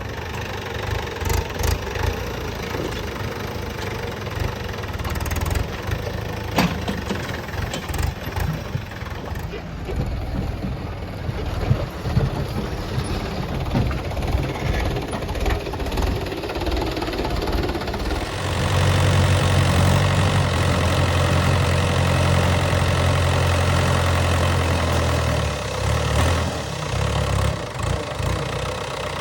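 Diesel engines of a backhoe loader and tractors running, with scattered clanks. About 18 seconds in, one engine grows louder and steadier for several seconds, then drops back.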